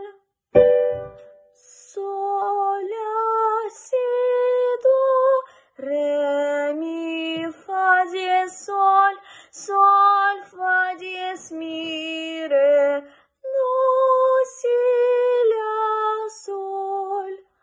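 A girl singing the G major scale unaccompanied, one held note after another stepping up and down in pitch, in short groups with brief breaks between them. It is a solfège scale-singing exercise.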